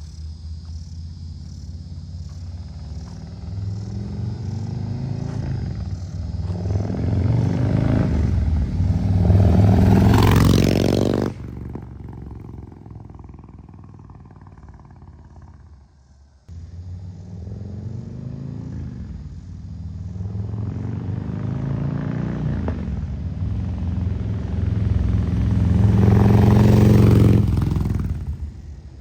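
Harley-Davidson Low Rider ST's Milwaukee-Eight 117 V-twin accelerating twice through slip-on mufflers, each run climbing in pitch and loudness for several seconds and then dropping away sharply.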